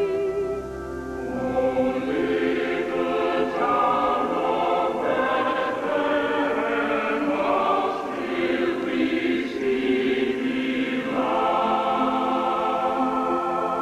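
A choir singing many voices together in sustained chords, as part of a Christmas carol, with chords held at the start and again near the end.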